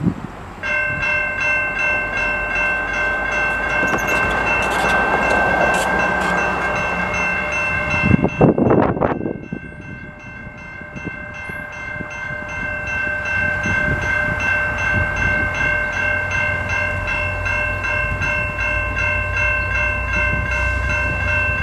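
Railway level crossing warning bell starting up under a second in and ringing continuously as the crossing activates for an approaching train. A brief loud rush about eight seconds in, and a low rumble that builds through the second half.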